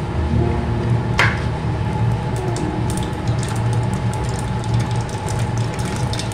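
Steady low hum, with a brief high chirp about a second in and faint scattered ticks from about two and a half seconds on.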